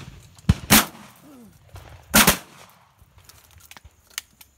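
Shotgun shots fired at birds overhead: two in quick succession within the first second, and another about two seconds in.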